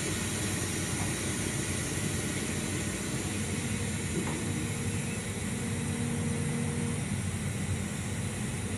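Steady rumble and hiss from a freight train of open-top goods wagons at the platform, with a faint hum in the middle of the stretch.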